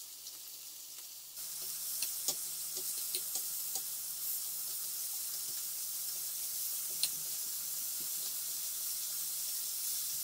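Chicken tenderloins sizzling as they brown in hot oil in a frying pan: a steady hiss with scattered sharp pops, growing louder about a second and a half in.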